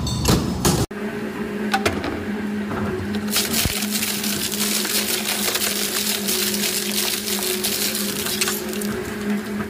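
Large twin-shaft shredder with a gear motor running with a steady hum. From about three seconds in, a steel plate is torn and crushed between the rotating cutter blades with a dense grinding, crackling noise that lasts until near the end.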